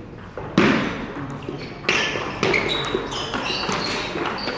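Table tennis rally: the celluloid ball clicking off the bats and the table in quick succession.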